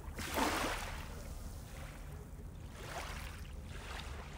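Water pouring over a dam spillway: a steady low rush, with the hiss swelling and fading a few times.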